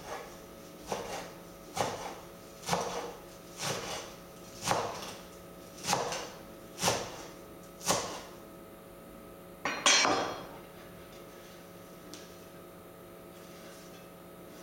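Kitchen knife chopping fresh dill and parsley on a cutting board, one stroke about every second, then a single louder knock about ten seconds in.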